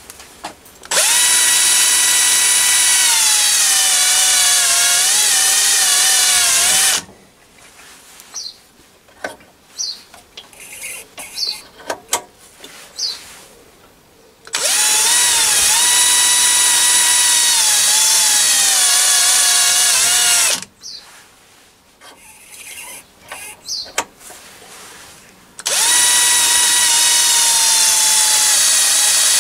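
JCB cordless drill, mounted on a mini lathe's tool post, spinning a centre drill into the face of the work three times, about six, six and four seconds each. Its whine drops in pitch partway through each run. Between runs there are scattered light clicks and knocks.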